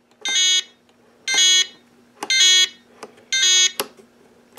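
Handheld RC airplane transmitter beeping its warning alarm just after being switched on: four short high beeps, about one a second. A faint steady low hum runs underneath.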